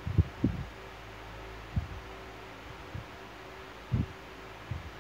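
Soft low thumps at irregular intervals, about six of them, over a steady low hum.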